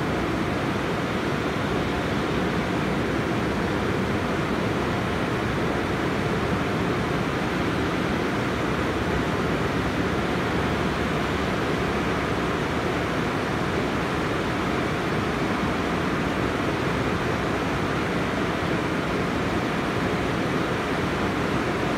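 Automatic tunnel car wash at work: rotating strip brushes scrubbing a car under water spray, a steady rushing noise.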